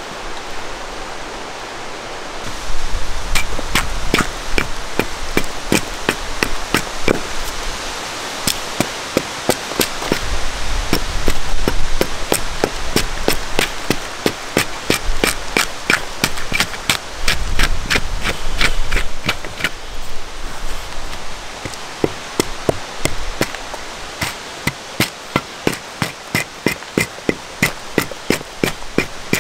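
Hatchet chopping wood on a wooden chopping block. After a steady hiss, a quick, even run of sharp chops starts about two and a half seconds in and keeps going at about two to three a second.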